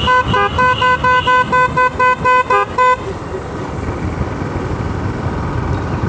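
A vehicle horn beeping rapidly, about four short beeps a second for roughly three seconds, then stopping. Underneath it runs the steady engine and wind noise of a motorcycle being ridden.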